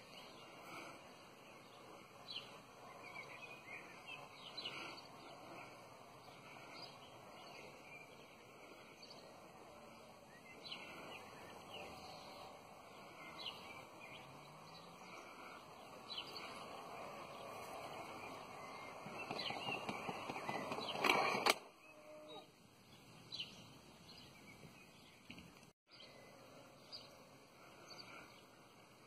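Small birds chirping intermittently over a faint steady outdoor background. About two-thirds of the way through, a louder rushing noise builds for a few seconds and then cuts off abruptly.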